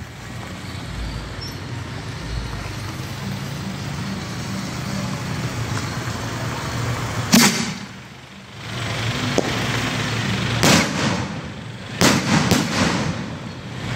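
Daytime aerial firework shells fired from a row of mortar tubes. There is one sharp bang about seven seconds in, then more bangs, several in quick succession near the end, as the shells go off overhead.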